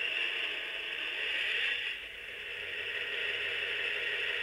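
QSI Quantum sound decoder in an HO-scale GP40-2 model locomotive playing its steady diesel idle through the model's small speaker, a constant hum with a high whine.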